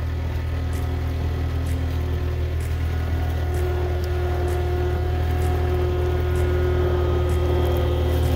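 Loader's engine running steadily under load, growing gradually louder, with a faint tick about once a second.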